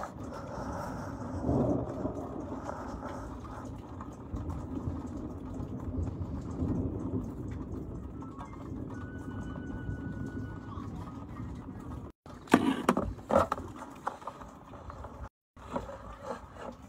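Distant thunder rumbling low and long, followed in the last few seconds by a few sharp knocks and clicks.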